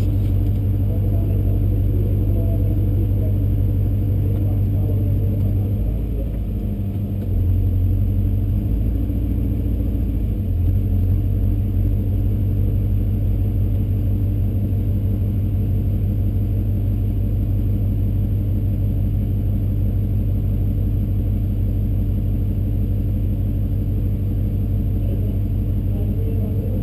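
A Chevrolet pickup drag truck's engine idling steadily, heard from inside the cab, with a brief change in its note about six to eight seconds in.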